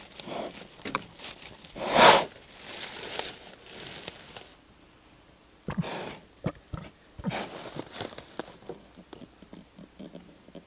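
An American black bear sniffing and snuffling with its nose in dry leaves and conifer needles while foraging, rustling the litter, with one loud burst about two seconds in. Then a run of short sharp clicks as it lifts its head.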